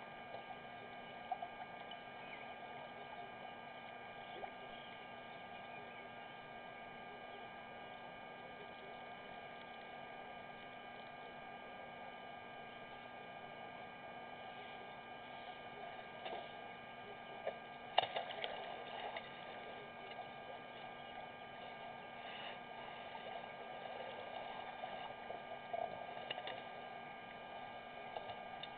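Steady electrical hum with a thin high whine, over a faint background hiss. A few soft clicks come through, the clearest cluster about eighteen seconds in.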